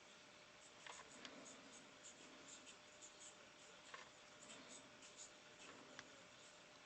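Near silence with a few faint clicks and light scratching, like small handling noises.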